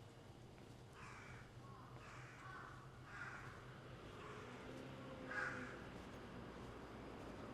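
A crow cawing four times, the first three about a second apart and the last, after a longer gap, the loudest. A faint steady low hum runs underneath.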